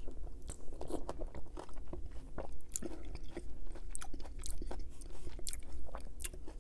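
Close-miked chewing of a mouthful of lasagna, with many small wet mouth clicks and smacks at an irregular pace.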